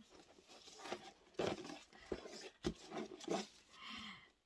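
Satin gift ribbon being untied and pulled loose from a cardboard gift box: soft rustling with scattered light clicks and taps of hands on the box.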